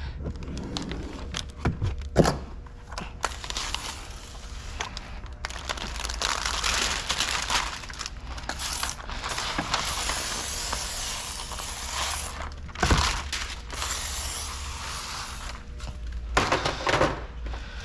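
Squeegee scraping and pushing water out along the bottom of wet window tint film on a car door window, in long rasping strokes with a few knocks and handling clicks between them.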